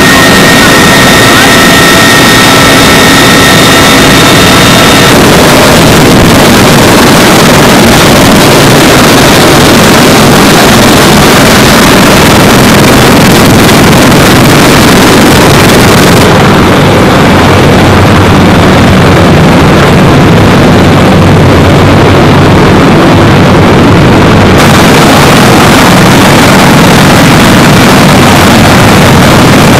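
CH-53 heavy-lift helicopter running loud and steady, its turbine and rotor noise filling the sound. For the first five seconds a high, steady turbine whine sits on top. From about 16 to 24 seconds in, the high end drops out and the low rumble carries on alone.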